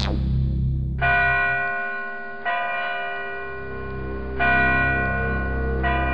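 A large bell struck four times, about one and a half to two seconds apart, each stroke ringing on and fading, over a low steady drone.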